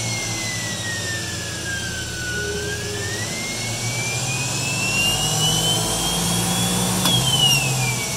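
Separately excited DC traction motor of a 1982 UM Electrek revving on its original analog Soleq controller. Its whine falls in pitch for the first couple of seconds, then climbs steadily as the motor speeds up, and drops again near the end as it slows.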